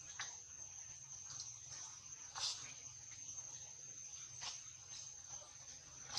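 Faint steady high-pitched drone of insects, with a few soft clicks scattered through it.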